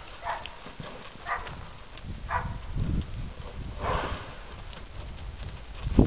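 Hoofbeats of a Tennessee Walking Horse/Spotted Saddle Horse filly walking on arena sand, short strikes about a second apart.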